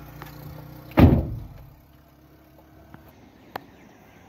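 A car door being shut: one loud, heavy thunk about a second in, after a low steady hum from the car. A single sharp click follows near the end.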